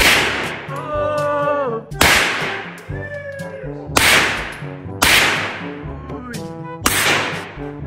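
Semi-automatic pistol shots in an indoor range, five of them at about one- to two-second intervals, each a sharp crack followed by a long echoing tail off the range walls.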